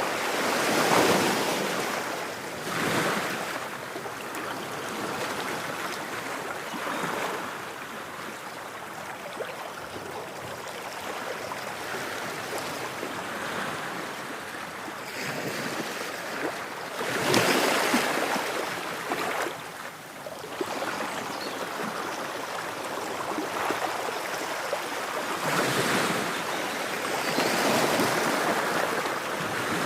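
Ocean waves washing in, a steady rush that swells into louder surges every few seconds, the biggest about 17 seconds in.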